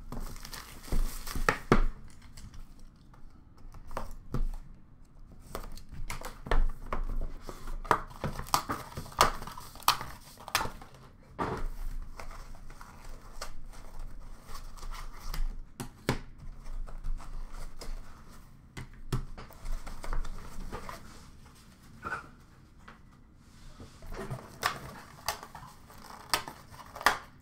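Plastic wrapping and packaging being handled as a hockey card box is opened by hand: irregular crinkling and rustling, with sharp clicks and taps as cards in clear plastic holders are taken out and stacked.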